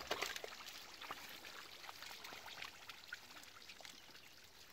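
Faint trickling water with many scattered small ticks and crackles, slowly fading.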